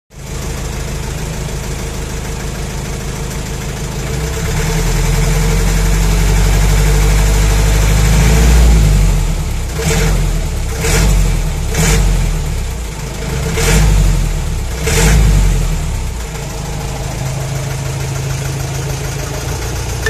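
Mahindra CJ3B Jeep's DI diesel engine running just after its first start following a month of standing. It idles steadily, is revved and held higher for several seconds, then is given a series of quick throttle blips before settling back to idle.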